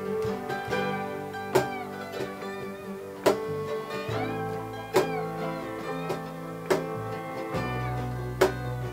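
Small acoustic band playing a slow song: strummed acoustic guitars, mandolin, a guitar played flat on the lap with a slide that glides between notes, bass guitar and a cajon. Strong accents fall about every second and a half to two seconds.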